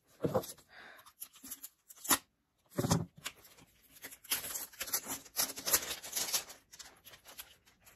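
Green plastic seal band being picked at with fingernails and peeled off a hard plastic toy egg: crinkling and tearing, with a few sharp clicks of the plastic being handled.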